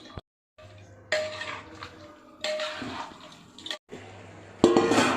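Metal cooking pot and utensils clanking: three sharp knocks, each with a short metallic ring, the last the loudest, over a low steady hum.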